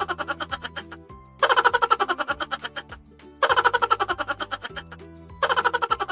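Upbeat background music: every two seconds a phrase of quick repeated notes fades away over a steady bass line.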